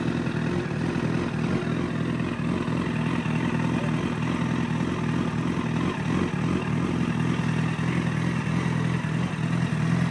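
Honda CBR1000RR inline-four engine idling steadily.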